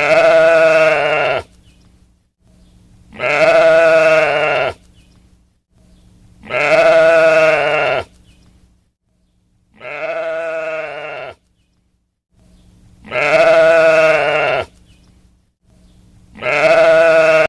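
Sheep bleating: six long, wavering bleats about three seconds apart, the fourth one fainter.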